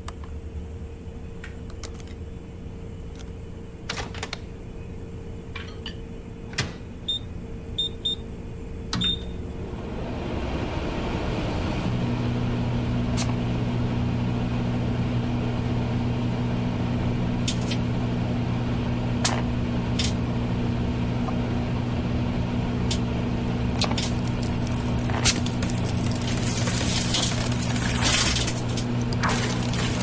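Microwave oven: a few clicks and about four short keypad beeps, then the oven starts up and runs with a steady hum. Scattered sharp crackles and pops sound over the hum and grow denser near the end.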